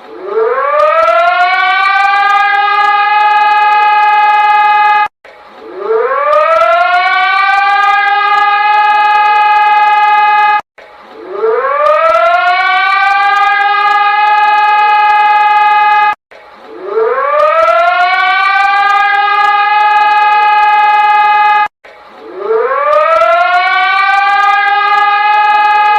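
Emergency alert alarm siren: a civil-defence-style siren tone that rises quickly in pitch over about a second and a half, holds steady, then cuts off abruptly and starts again, repeating five times about every five and a half seconds.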